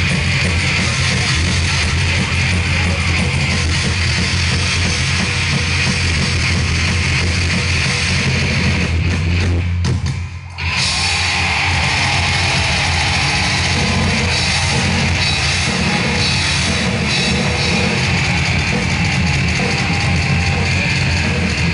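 Live heavy metal band playing loud through a PA, with distorted electric guitar, bass and drum kit. The music breaks off for a moment about halfway through, then carries on.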